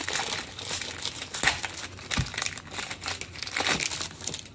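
Foil trading-card pack wrappers crinkling as cards are handled, in a string of short crackles, with a soft knock about two seconds in.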